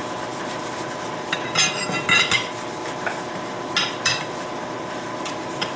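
Cloth rag wiping hot wax off a freshly waxed forged steel bracket: a few short scraping rubs and light metallic clinks over a steady hiss.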